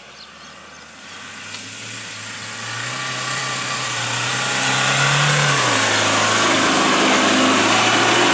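Mahindra Scorpio's mHawk diesel engine under load, climbing closer and louder, its pitch rising then dropping about halfway through, over the hiss of the tyres churning loose sand.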